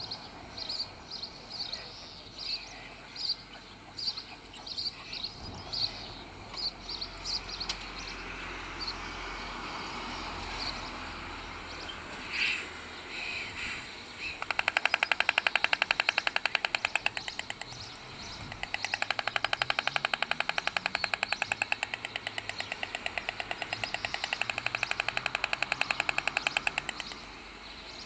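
White stork bill-clattering: a loud, very rapid, even wooden rattle in two long bouts, the first starting about halfway through and the second after a short break, running until near the end. It is the storks' greeting display at a changeover on the nest. Before it, small birds chirp.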